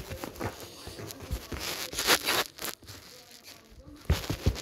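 A cat pawing and clawing at cloth trousers: irregular scratching and rustling of fabric, loudest about two seconds in, with a few soft knocks near the end.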